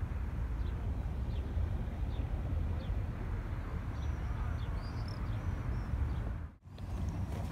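Outdoor ambience: a steady low rumble with small birds chirping now and then in short, high calls. The sound cuts out briefly near the end.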